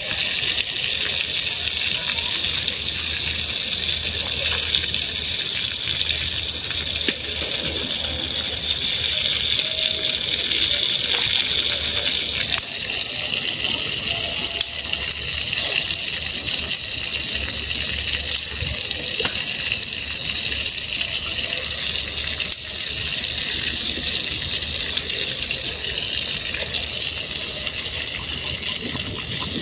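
Battered banana pieces frying in hot oil in a small pan over a wood fire: a steady sizzling hiss with scattered pops and crackles.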